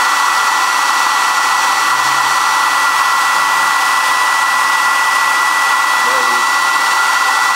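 A loud, steady rushing noise with a constant high whine running through it, unchanging throughout.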